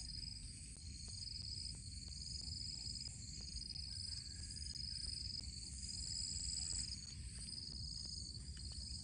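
Insects trilling: several overlapping high-pitched trills, one of them in repeated bursts about a second long, over a steady low rumble.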